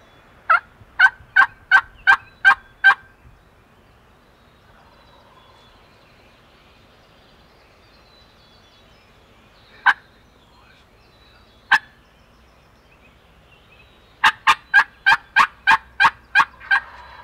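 Turkey yelps: a run of about seven notes, then two lone notes, then a run of about nine notes near the end, each run at roughly three notes a second.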